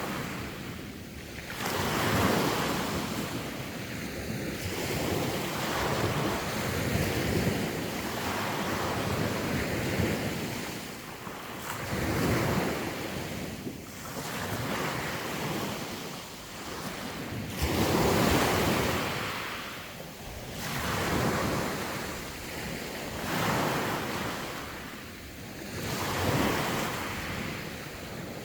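Sea waves washing onto the shore in repeated swells, each surge rising and falling every two to three seconds, with some wind on the microphone.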